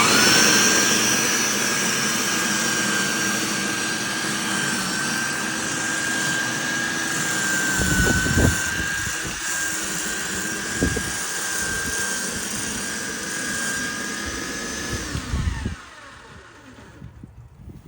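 Benchmark 13-amp electric lawn dethatcher's motor switching on suddenly and running with a steady high whine, with a few low thumps partway through. About fifteen seconds in it is switched off and winds down, its whine falling in pitch.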